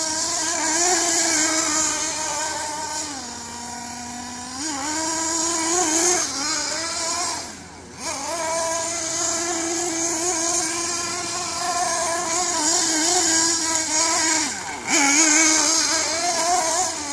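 Radio-controlled car's small nitro two-stroke engine running with a loud, high buzz, revving up and down as it drives. Its pitch settles lower, as at idle, about three to four and a half seconds in, drops away briefly near eight seconds, then picks up again.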